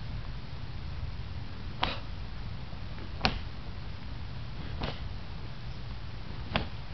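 Four short, sharp snaps, about one every second and a half, from a martial artist's strikes while practising a kung fu form, over a steady low rumble.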